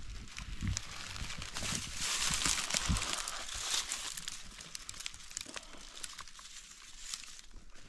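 Rustling and crunching of dry scrub and leaf litter as someone walks through bush, with a few low thumps of footfalls in the first three seconds. It grows louder about two seconds in and then fades away.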